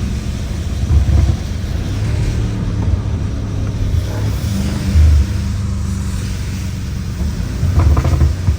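BMW M5 Competition on the move in heavy rain: a steady low engine drone that swells briefly about a second in and again around five seconds in, over a light hiss of rain and tyre spray.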